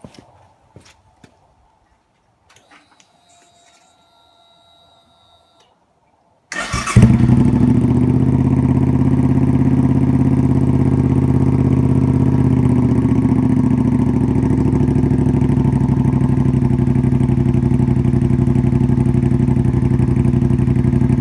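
Suzuki Intruder Classic 400's V-twin engine started about six seconds in, cranking briefly and catching at once, then running at a steady idle through a Kentec lowrider muffler whose silencer has been repacked with glass wool. Before the start, only a few faint clicks.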